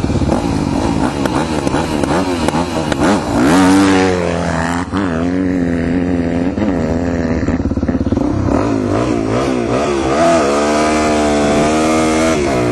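Dirt-bike engines: one revs hard and pulls away about three seconds in, then the helmet-cam Suzuki DR-Z400E's single-cylinder four-stroke accelerates up through the gears, its pitch rising and dropping with each gear change.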